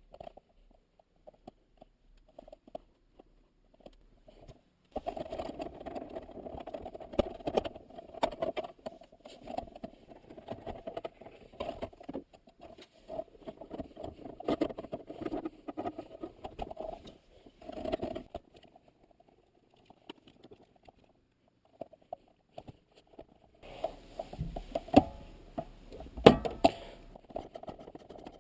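Intermittent clicks, knocks and rattling of hands and tools working on a manual-transmission shifter assembly, with a quiet spell in between and two sharper knocks near the end.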